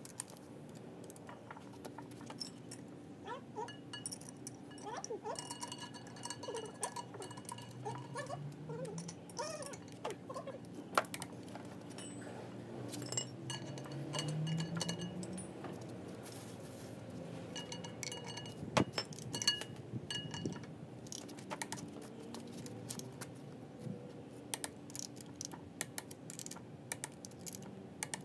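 Socket ratchet clicking and steel tools clinking as the bolts of a marine coupling drive gear are run in and tightened, with irregular sharp metal clicks throughout. A low rising hum passes twice in the background.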